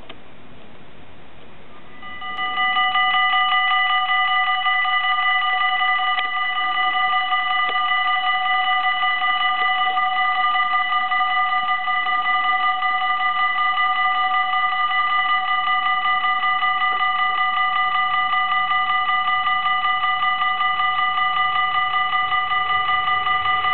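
Dutch AHOB level-crossing warning bells start about two seconds in and keep up a rapid, steady ringing in several tones. They signal that the crossing's half-barriers are lowering for an approaching train.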